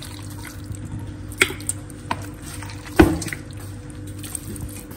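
Pieces of seasoned meat cutlet being set into an oiled stainless-steel pot, with a few sharp knocks against the metal, the loudest about three seconds in, over a steady low hum.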